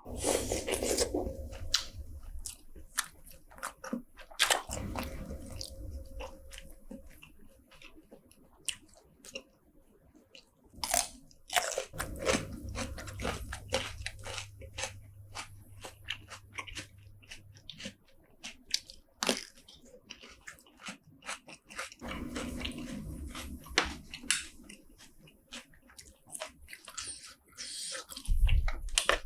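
Close-miked chewing and biting of seafood, wet mouth sounds with many sharp clicks and short crunches.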